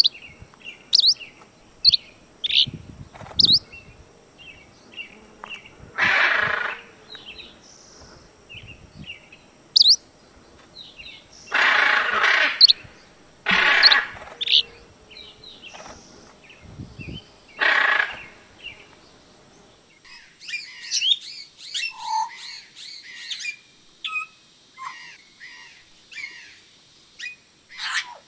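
Macaw squawks, four loud harsh calls each about half a second to a second long in the first twenty seconds, among short high chirps of smaller birds. Over the last eight seconds comes a fast run of high twittering.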